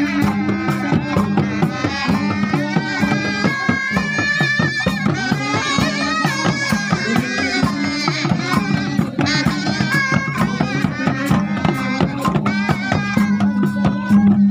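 Live street-procession music: handheld wind instruments playing a wavering melody over a held low drone, with drums beating a steady rhythm.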